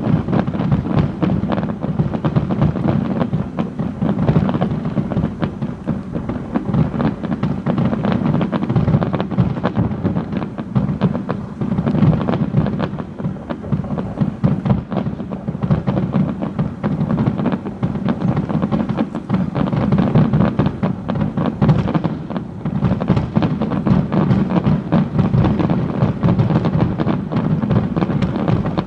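Fireworks finale: a dense, continuous barrage of shell bursts, the bangs overlapping with no break.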